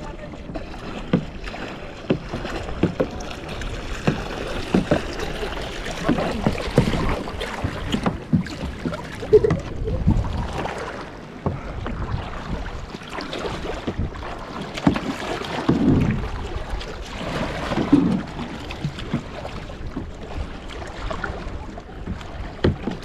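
Choppy lake water slapping and splashing against a paddleboard, with irregular splashes and wind buffeting the microphone.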